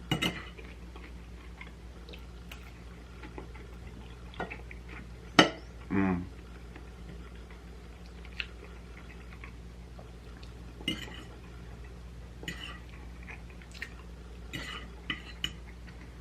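Eating with cutlery from a bowl or plate: scattered clinks and taps of a fork on the dish with chewing, one sharp clink about five seconds in and a cluster of light clicks near the end.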